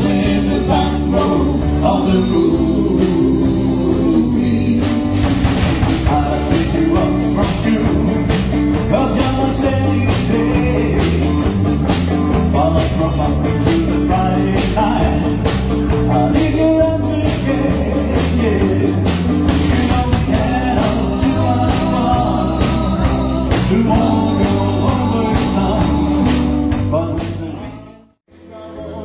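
Rock and roll band music with electric guitar, bass and drums, steady and full throughout. Near the end the music stops and falls almost silent for a moment before the next number begins.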